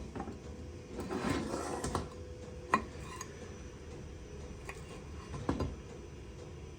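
Metal tools and parts handled on a workbench: a brief scrape and rustle, then a single sharp metallic click, and a few lighter knocks later.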